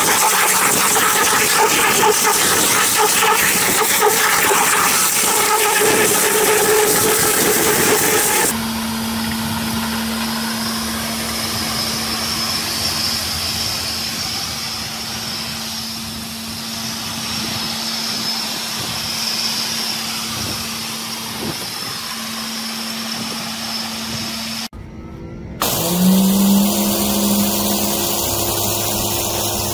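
Pressure washers running: a steady engine note under the hiss of the high-pressure water spray, across several clips cut together. There is a short drop-out about 25 seconds in, and soon after it the engine note rises in pitch.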